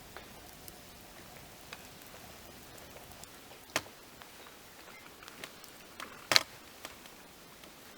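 Wood fire crackling: scattered small pops, with two sharp loud cracks, one a little before the middle and one about three quarters of the way through.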